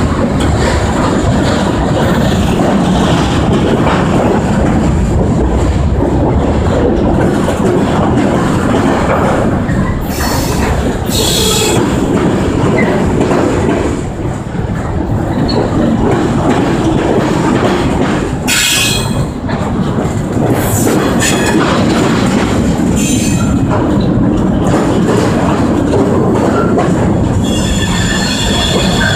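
Freight train cars rolling past, a steady rumble of steel wheels on the rails. Short high screeches come several times, and a sustained wheel squeal near the end.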